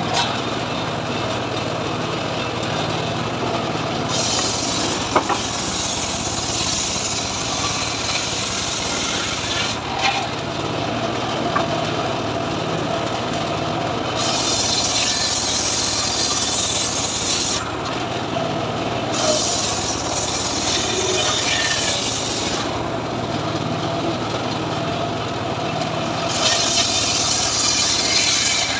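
Homemade circular saw bench cutting leucaena logs: the drive motor and blade run with a steady low hum, while a hissing rasp of the blade biting through the wood comes and goes in about five separate cuts.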